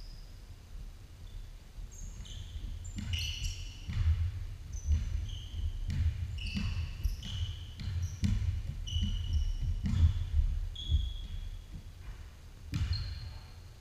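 Basketball bouncing on a hardwood gym floor, with irregular thuds of running feet and many short, high sneaker squeaks, echoing in a large gym.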